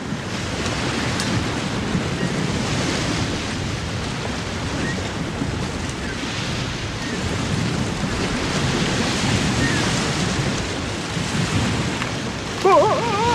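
Storm-at-sea sound effect: a steady rush of wind and waves.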